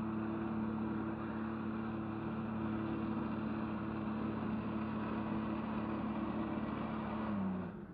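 Jet ski engine running steadily at high revs, its jet pump driving water up the hose to a flyboard, with water and wind noise. Near the end the engine note drops in pitch and level as the throttle is eased off.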